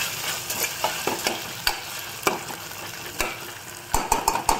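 Onions, herbs and ginger-garlic paste sizzling in hot oil in a small aluminium pressure cooker while a metal spoon stirs them, scraping and clicking against the pot now and then, with a quick run of knocks near the end. The paste is being fried until its raw smell goes.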